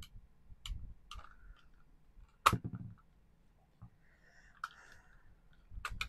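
Plastic housing of a Logitech MX Ergo trackball mouse being pried apart by hand: scattered light clicks and one sharp snap about two and a half seconds in, as the snap-fit clips holding the bottom let go.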